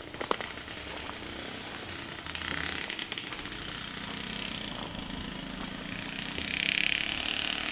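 Steady outdoor background noise with a low hum underneath. A hiss swells briefly about two and a half seconds in and again near the end.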